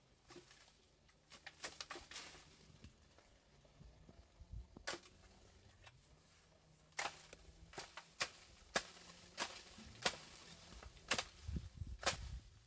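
Long bamboo pole knocking against the branches of a canistel (lekima) tree to bring down the fruit: a run of sharp, irregular knocks, few at first and coming thick and fast in the second half.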